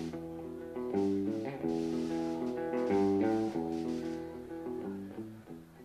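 Electric guitar playing a short run of chords on stage, each change about every half-second, dying away near the end.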